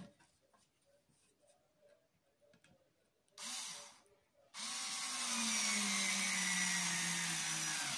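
Crown cordless screwdriver's motor whirring briefly, then running for about three seconds as it drives a screw into wood, its pitch slowly dropping under the load before it stops near the end.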